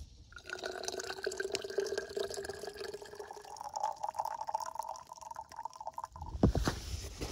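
Hot water poured from a stainless steel kettle into a water bottle, the note rising as the bottle fills. The pour stops about six seconds in, followed by a few knocks.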